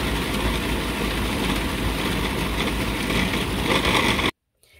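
Food processor motor running steadily while a ball of raw spinach and flour dough tumbles around the bowl, kneaded with no water added. It cuts off suddenly about four seconds in.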